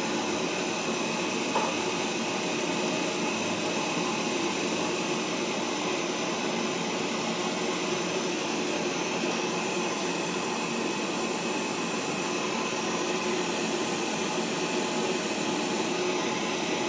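Pet grooming stand dryer blowing air in a steady rush, with a faint steady whine in it.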